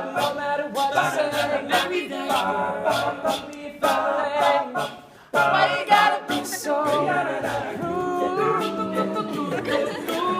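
All-male a cappella group singing in close harmony with a vocal-percussion beat, the voices dropping out briefly about five seconds in before coming back.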